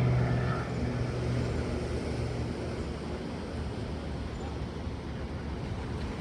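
Steady wash of ocean surf on a rocky shore. A motor's hum fades away over the first two seconds or so.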